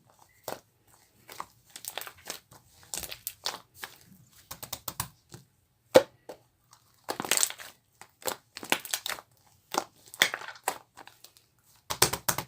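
Marbling slime being worked by hand, giving irregular bursts of crackling, clicking pops with short pauses between them.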